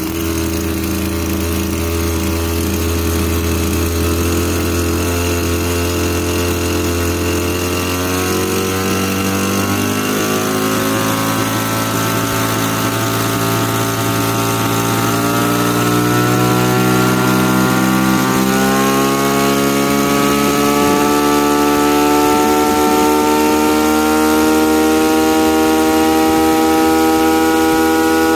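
Maruyama BIG-M KC26 26cc two-stroke brush cutter running with its blade spinning. The engine speed holds steady at first, then climbs slowly about ten seconds in and again past the middle, and settles at a higher steady speed.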